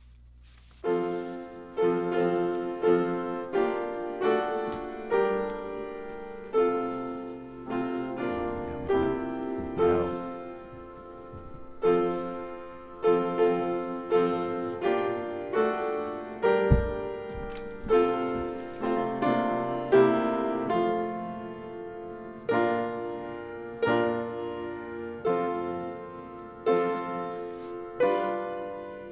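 Piano playing a slow, chord-based piece, starting about a second in, each chord struck and left to fade.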